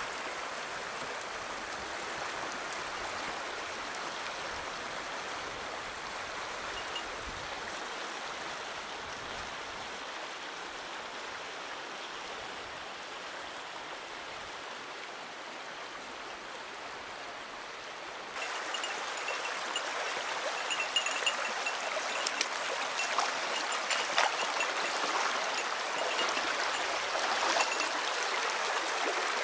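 Shallow stream running over stones and gravel: a steady rush of water that becomes louder and fuller about two-thirds of the way in, with scattered sharp clicks.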